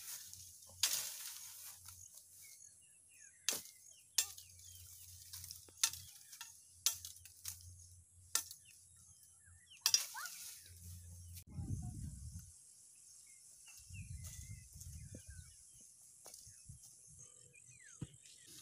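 Bolo knife chopping at thin bamboo branches: about eight sharp strikes over the first ten seconds, some followed by a brief rustle of leaves. Later come two short stretches of low rumble.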